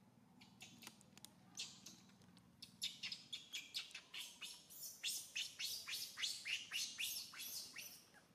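Infant macaque crying in a rapid run of short, high-pitched squeaks, a few at first, then about three a second and louder toward the end.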